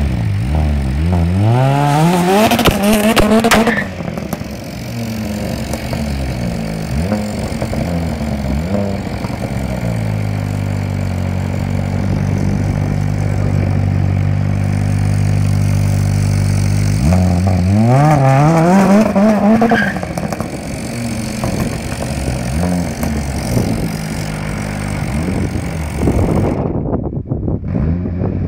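Turbocharged Peugeot 106 GTI's four-cylinder engine, fitted with anti-lag, revving hard as the car pulls away: the revs climb steeply for a few seconds, then drop off. Midway the engine holds a long steady note, then climbs in a second hard pull before fading into a rougher, noisier sound near the end.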